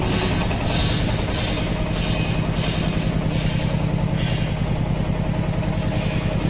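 Diesel engine of a hydraulic concrete block machine running steadily at a constant speed, with a soft high scuffing hiss repeating about every two-thirds of a second over it.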